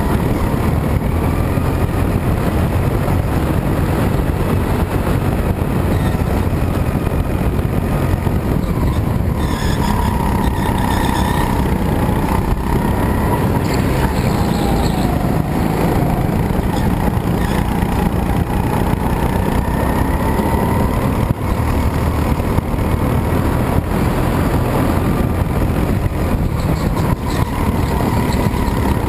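Go-kart engine running flat out while lapping, heard from the driver's seat, its pitch rising and falling as the kart accelerates and slows through the corners.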